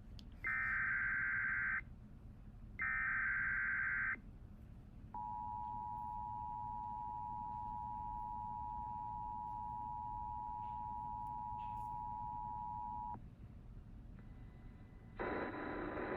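Emergency Alert System tones: two data bursts of the digital SAME header, each about a second and a half long, then the two-tone EAS attention signal held steadily for about eight seconds. Together they mark the start of a new alert, and a synthesized voice begins reading it near the end.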